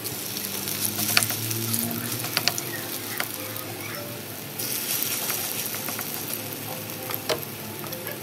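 Fish fritter batter sizzling as it shallow-fries in hot oil in a frying pan, with a few sharp clicks in the first few seconds. The sizzle gets louder about four and a half seconds in.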